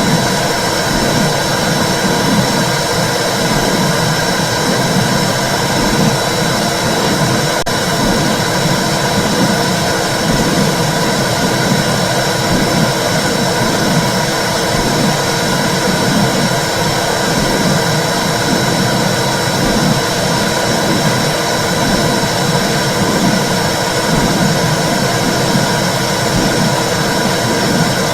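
Womb sound for soothing babies: a steady, loud, low rushing whoosh with a soft repeating pulse in the low part.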